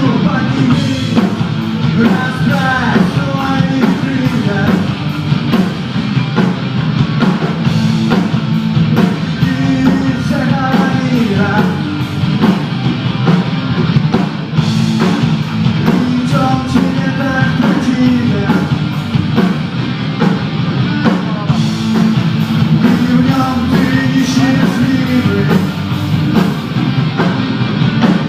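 Rock music: distorted guitars and drum kit playing a driving, steady beat, with a lead guitar or vocal line over it.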